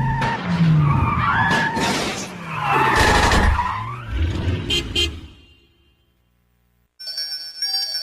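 Cartoon sound effects of a car running and tyres skidding, with sliding pitches and a few sharp clattering hits, fading out about five seconds in. After a short silence, bright music with chiming tones starts near the end.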